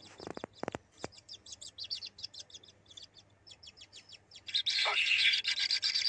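Kingfisher nestlings in a burrow nest chirping rapidly and high, several calls a second, with a few sharp knocks in the first second. About four and a half seconds in they break into a loud, harsh, continuous begging chorus.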